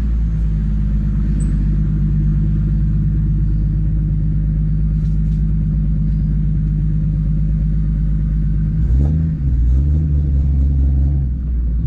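Lexus IS300's swapped 1.5JZ inline-six engine running steadily while the car drives. About nine seconds in, the engine note dips and then picks up again.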